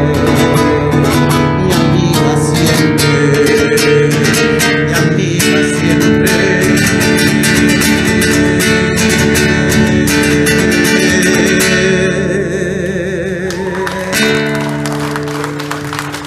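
Acoustic guitar strummed briskly as the song's closing instrumental. The playing softens about twelve seconds in, then a last chord is struck near the end and left to ring out, fading.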